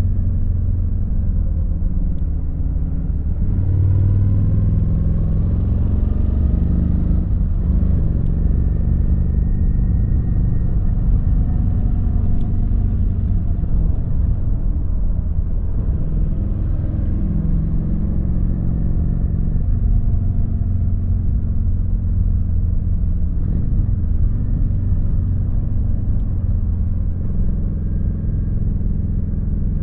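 Kawasaki VN900's V-twin engine running on the road, its pitch rising and falling several times with throttle and gear changes.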